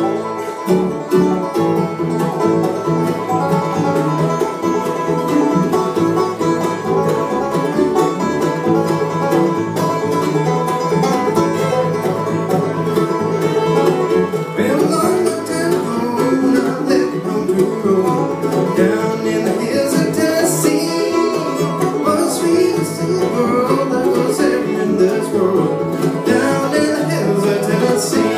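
Bluegrass band playing live on banjo, fiddle, mandolin, acoustic guitar and upright bass, a steady up-tempo tune with the banjo picking prominent.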